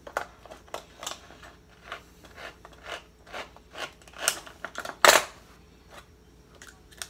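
Hand-cranked manual can opener cutting around the lid of a small can: a run of short metallic clicks and crunches as the key is turned, with one louder clack about five seconds in.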